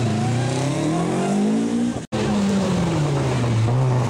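Rally car engine revving, its note climbing steadily as the car pulls away through the corner. A sudden brief dropout about halfway through is an edit cut. After it, a second rally car's engine note falls steadily in pitch as it comes up to the junction.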